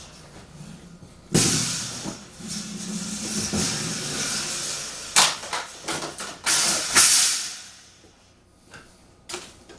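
Rustling and scraping of cardboard packaging and loose carrier parts being handled: a sudden, longer rustle about a second in, then several sharp knocks and scrapes a few seconds later.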